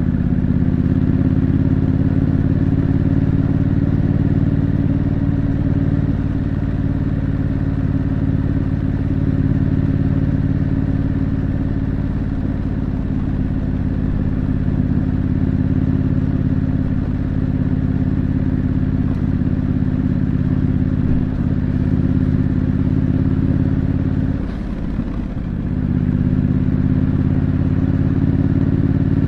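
2025 Triumph Scrambler 900's parallel-twin engine through its stock exhaust, running steadily under way with a low rumble beneath. Near the end the engine note briefly drops away for about a second, then picks up again.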